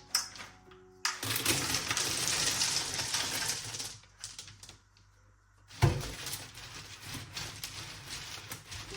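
Many small hard objects, likely whole almonds, clattering together in a dense rattle from about a second in until four seconds, then a sharp knock near six seconds followed by lighter, scattered clattering.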